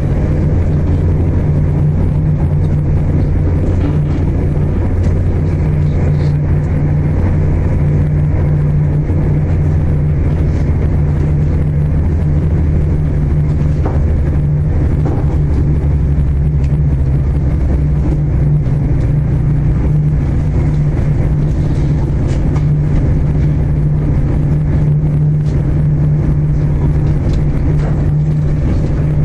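Cabin noise inside a Class 221 Super Voyager diesel-electric train running at speed: a steady low drone from its underfloor Cummins diesel engine over a constant rumble of wheels on the rails.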